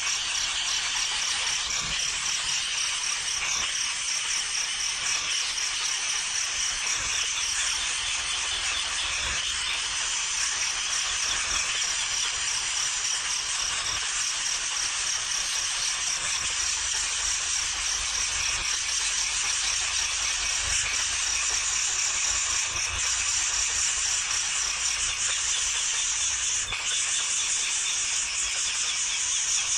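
A brood of nestling birds keeping up a dense, continuous, high-pitched chattering of rapid begging calls, the noisy alarm-like clamour of chicks disturbed by a rat.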